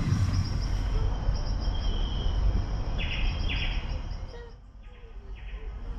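Outdoor ambience: a steady low rumble with a few birds chirping now and then. The rumble drops away briefly about four and a half seconds in.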